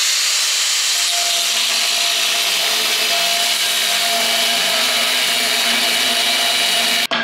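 Angle grinder with its disc on rusty steel, a steady hissing grind over the motor's whine, cutting off suddenly near the end.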